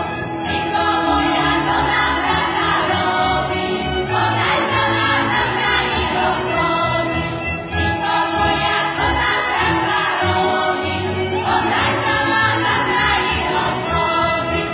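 Women's folk vocal group singing a Šariš folk song from eastern Slovakia, several voices together.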